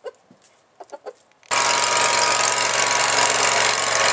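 A few faint chicken clucks, then about a second and a half in a sudden cut to a riding lawn mower's engine running loud and steady.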